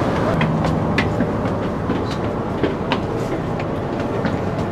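Train running: a steady low rumble with scattered sharp clicks and knocks.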